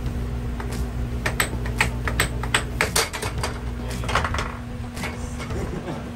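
Air hockey puck and mallets clacking in a fast rally: sharp irregular hits coming thick through the first half and thinning out later, over the steady hum of the table's air blower.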